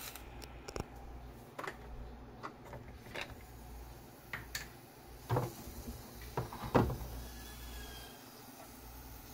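Light clicks and knocks of a plastic olive-oil jug and a nonstick frying pan being handled on an electric stovetop, the two loudest knocks about five and a half and seven seconds in, over a faint low hum.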